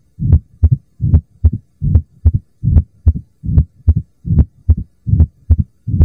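Heart sounds of mitral stenosis, as heard at the mitral (apex) auscultation point: a steady heartbeat at about 75 beats a minute, each beat a pair of low thumps.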